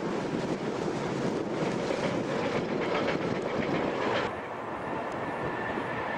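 Diesel-hauled passenger train passing close by, its wheels clicking over the rail joints. About four seconds in the sound cuts abruptly to quieter wind-like noise with a faint steady whine.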